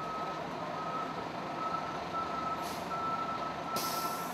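FDNY fire engine backing up: its reversing alarm beeping steadily over the running engine. A short hiss of air near the end.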